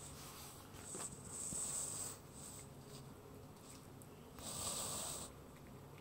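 Young kitten eating wet cat food from a glass saucer: faint chewing and licking clicks, with two breathy, hissing bursts about a second long, one about a second and a half in and another about four and a half seconds in.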